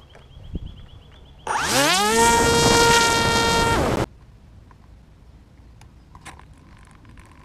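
Brushless electric motor and propeller of a TBS Caipirinha FPV flying wing. About a second and a half in it throttles up with a fast rising whine, holds a steady high buzz for about two seconds, then cuts off abruptly.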